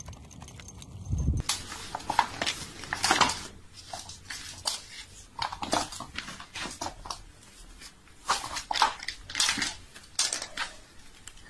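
Irregular scratchy rustling and scraping from close handling of a canvas sneaker and a kitten, with a low thump about a second in.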